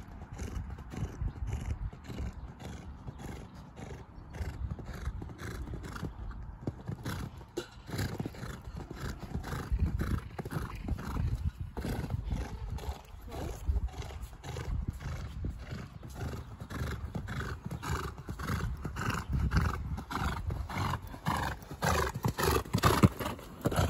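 A ridden horse cantering on arena sand, its hoofbeats falling in a steady, even rhythm that grows louder near the end as it passes close.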